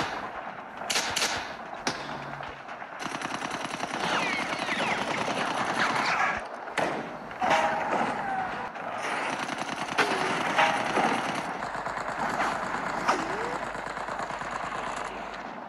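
Battle gunfire: a continuous rapid rattle of machine-gun fire, with louder single shots cracking out over it every few seconds.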